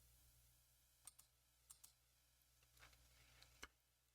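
Near silence with about seven faint, sharp clicks scattered through it.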